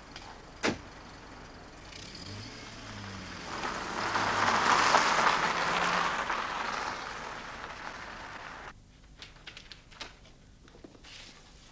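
A car door slams shut, then the car's engine starts and the car drives off, its sound swelling for a few seconds and fading away. After it, a quieter stretch with faint small ticks.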